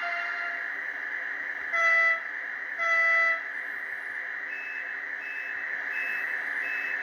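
ICE3 sound decoder in an H0-scale model train, played through its small speaker: two short horn toots about a second apart, over a steady electric drive whine.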